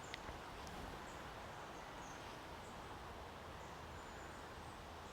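Quiet riverbank background: a steady low hiss with faint, short, high bird chirps repeating every second or so, and a single light click at the very start.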